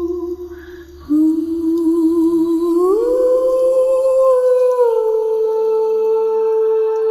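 Drama score: a wordless vocal melody of long held notes, hummed, that fades briefly near the start and then steps up to a higher note about three seconds in and settles slightly lower after about five seconds.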